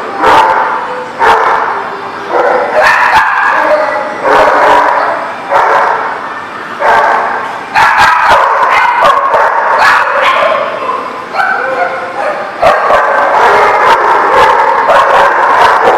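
Dogs barking and yipping at once, loud and without a break, with a fresh burst of barks every second or so over a steady din of overlapping barks.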